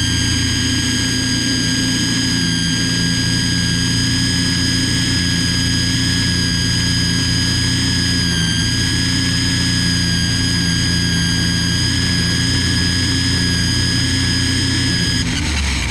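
Ryobi string trimmer running at full speed with a steady high whine, then starting to slow down near the end.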